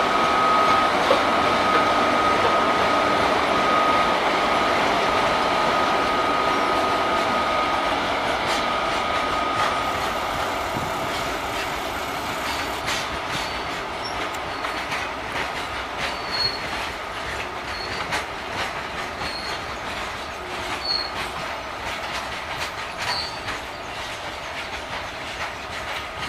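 Two WAG-7 electric locomotives heading a goods train rolling slowly past: a steady whine over the rumble as the locomotives go by, then the wagons following with wheels clicking over the rail joints and a few short wheel squeaks, the sound slowly fading.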